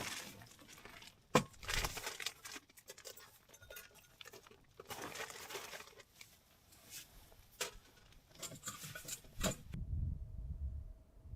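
Irregular rustling and crinkling, as of material being handled, broken by scattered sharp clicks and a knock about a second and a half in.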